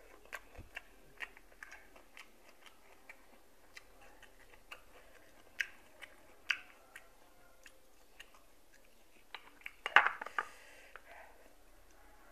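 Mouth chewing boiled golden apple snail meat, with scattered small clicks and a brief louder clatter about ten seconds in.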